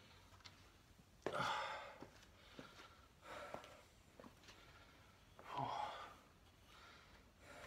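A man breathing out heavily, three quiet sighs a couple of seconds apart, with a few faint clicks in between.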